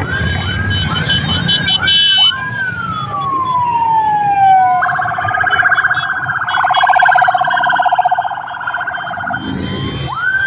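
Electronic sirens on a passing municipal police motorcycle and vehicle convoy. Short rising whoops repeat about twice a second, then come one long falling wail and a fast warble for about four seconds, and the whoops return near the end.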